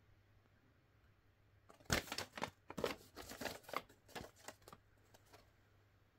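UNO card game box and cards being handled during unboxing: a run of crackly rustles and clicks lasting about three seconds, starting about two seconds in.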